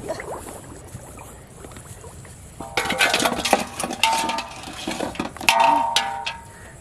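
A metal basin clattering and ringing as a freshly caught fish is handled in it: quiet at first, then rapid knocks from about three seconds in, with a louder ringing clang near the end.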